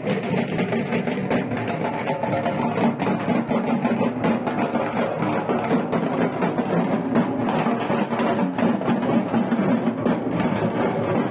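Loud festival procession music: dense, steady drumming with a melody carried over it.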